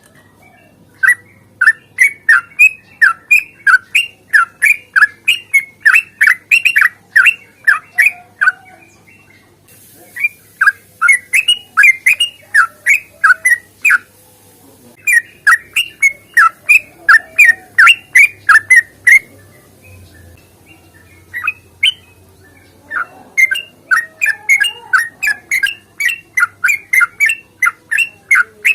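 Yellow-vented bulbul (trucukan) singing its long, rapid chattering song: bursts of quick sweeping notes, about four a second, broken by a few short pauses.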